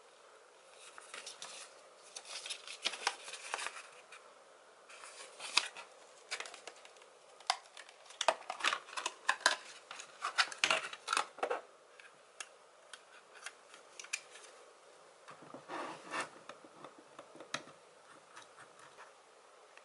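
Rigid clear plastic clamshell packaging crackling and clicking as it is handled and a mouse is pried out of it, with a dense run of sharp clicks about midway. Softer rubbing follows near the end.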